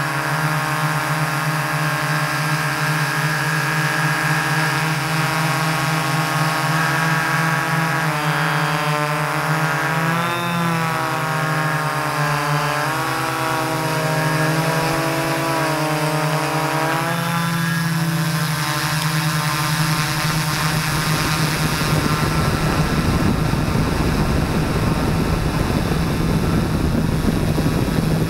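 Multirotor drone's electric motors and propellers whining as it flies, several motor pitches rising and falling against one another. Over the last third a rougher rushing noise takes over.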